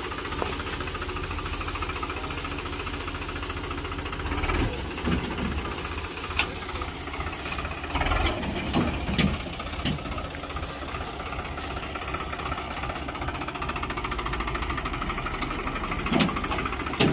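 Tractor's diesel engine running steadily, with scattered knocks and clanks between about four and ten seconds in and again near the end.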